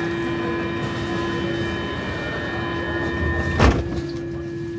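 Stockholm subway train with its sliding doors closing: a steady tone sounds over the car's rumble, and the doors shut with a single loud thud about three and a half seconds in.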